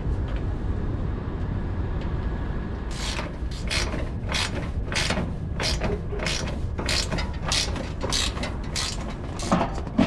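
Ratchet wrench tightening the nuts and bolts that hold a rooftop unit's condenser fan assembly together. About three seconds in it starts clicking in quick, even strokes, two or three a second, and keeps on until near the end, over a steady low rumble.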